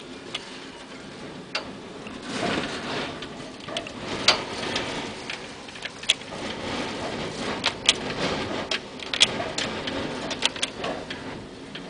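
Something come loose outside banging and clattering irregularly in the hurricane wind: sharp knocks that come in flurries, several a second at the busiest, over a rushing wind that swells a couple of seconds in.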